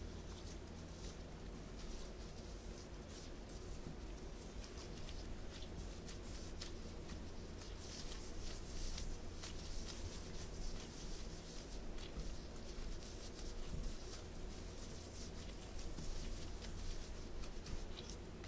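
Gloved hands squeezing and patting crumbly corn scone dough into a ball, giving soft crackling rustles and light taps that grow busier about halfway through, over a low steady hum.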